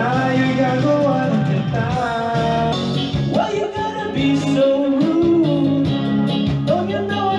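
Karaoke: a man singing into a microphone over a backing track, both coming through the karaoke system's loudspeakers.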